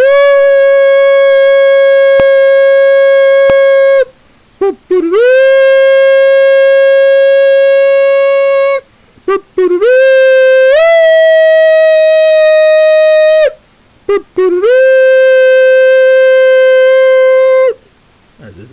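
Shofar blown in four long, loud, steady blasts, each opening with a short rising note. The third blast steps up in pitch partway through.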